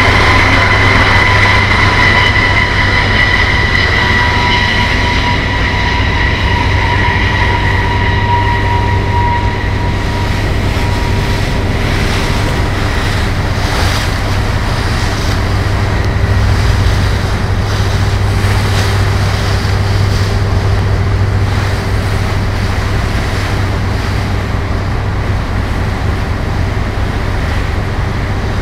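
Steady low engine drone with rushing wind and water noise, over which a helicopter's high turbine whine fades away during the first ten seconds or so.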